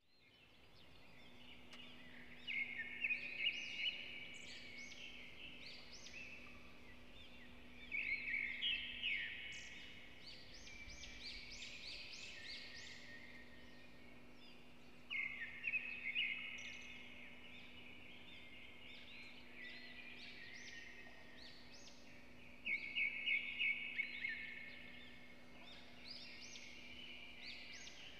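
A bird singing: four bursts of quick, high chirping notes, roughly every seven seconds, over a faint steady low hum.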